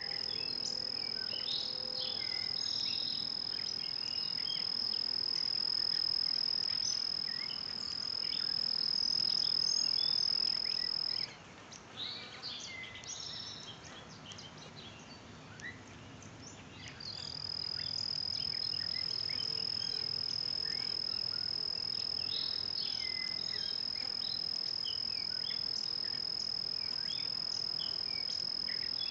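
Insects singing at dusk: one steady high-pitched trill that breaks off about eleven seconds in and starts again some six seconds later, with many short chirps scattered around it.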